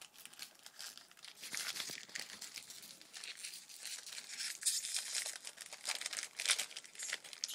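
Wrapper of a 2013 Bowman Baseball jumbo card pack being torn open and crinkled in the hands: an irregular crackling with several louder bursts.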